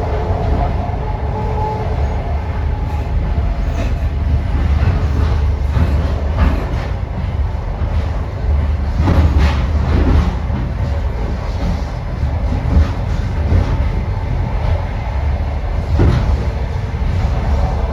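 Passenger train running along the track: a steady low rumble of the carriages with occasional wheel knocks, and a higher whine near the start and again near the end.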